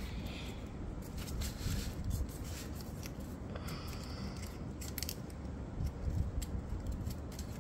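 Paper being folded and creased by hand: irregular crisp rustles and crinkles.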